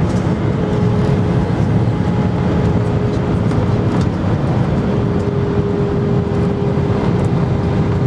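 Steady cabin noise of an Airbus A319 in flight, heard from a window seat beside the engine: a low, even drone of jet engines and airflow with a faint steady hum that grows a little stronger about halfway through.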